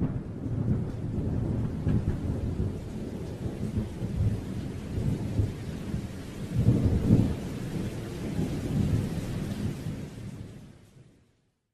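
Thunderstorm sound: low rolling rumbles that swell several times over a steady rain-like hiss, fading out near the end.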